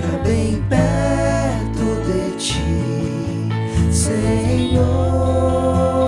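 Contemporary Christian worship song music: acoustic guitar and held notes over a steady low bass, with no lyrics sung.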